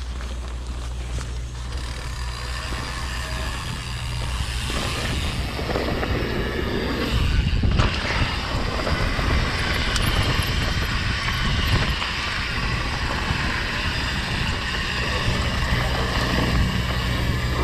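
Mountain bike descending a dirt trail: wind rushing over the microphone and tyres rumbling and rattling over the ground, growing louder and rougher about five seconds in as the speed picks up.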